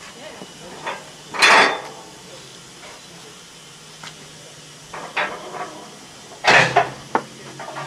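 Narrow-gauge steam locomotive being pushed round on a hand-worked turntable: a few short hisses with metallic clanks and sharp clicks, and a low steady hum that comes in near the end.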